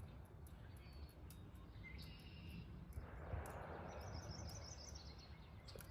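Quiet outdoor ambience: a low steady rumble with faint bird chirps about two seconds in and again around four to five seconds.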